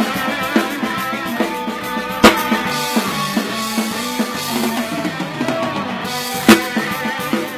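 Live rock band playing electric guitars, bass guitar and drum kit, with two loud accented drum-and-cymbal hits, one about two seconds in and one near the end.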